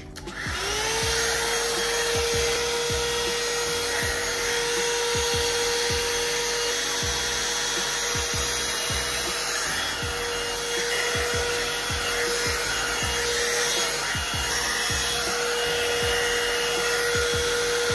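Hot air brush (round dryer brush) running: its motor spins up to a steady whine within the first half-second, with a constant rush of blowing air, while the brush is drawn through hair.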